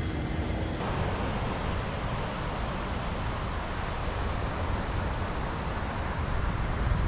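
Wind buffeting the microphone in a steady low rumble, over the even hiss of ocean surf breaking on the beach.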